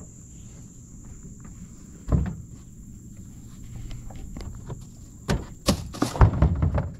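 Knocks and thumps in a small fishing boat as a freshly caught panfish is put away in the fish box: one sharp knock about two seconds in, then a cluster of several louder knocks near the end, over a low steady rumble.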